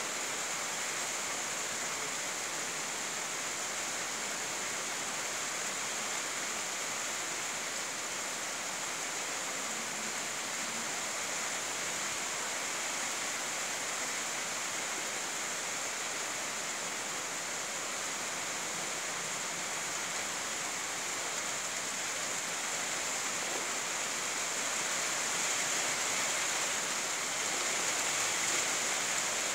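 Steady hiss of rain falling on grass and trees, growing a little louder near the end.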